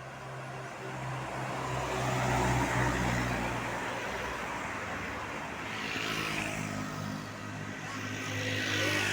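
Roadside traffic: vehicles passing one after another, each swelling and fading, three passes in all, over a steady low engine hum.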